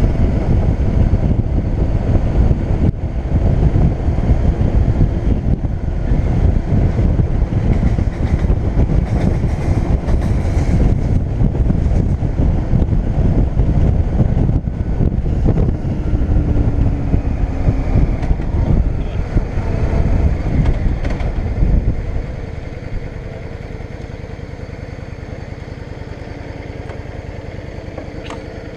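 Yamaha DragStar V-twin motorcycle riding at speed, its engine mixed with heavy wind and road rumble. About three-quarters of the way through, the sound drops to a quieter, steadier engine note as the bike slows.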